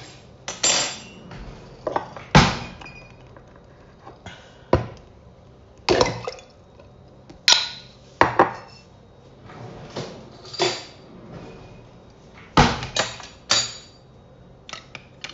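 Kitchen clatter: dishes, containers and utensils knocked and set down on a counter, about a dozen sharp clunks and clinks at irregular intervals.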